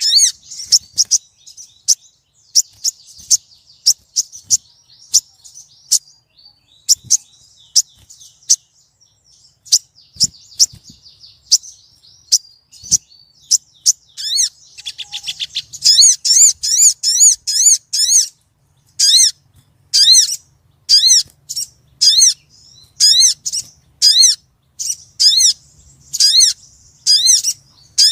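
Female sogon bird calling to a male. It gives sharp, rapid high ticks and chatter at first, then a short trill around the middle. After that come loud, arched high call notes repeated about once a second.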